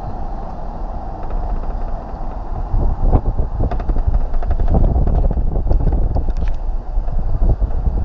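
Road noise inside a moving car: a steady low rumble of engine and tyres, with scattered light clicks and knocks from about three seconds in.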